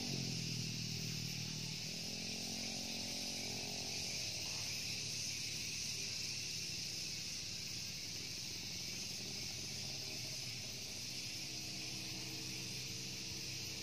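Steady high insect buzzing, such as cicadas or crickets, with a low steady hum underneath.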